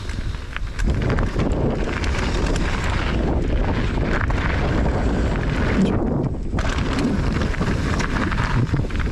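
Wind buffeting the camera microphone of a mountain bike riding fast down a dirt trail, mixed with tyre noise and the knocks and rattles of the bike over bumps. The hiss drops away briefly about six seconds in.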